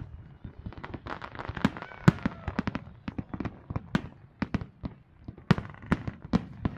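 Fireworks display: aerial shells bursting in a rapid, irregular string of sharp bangs, several a second.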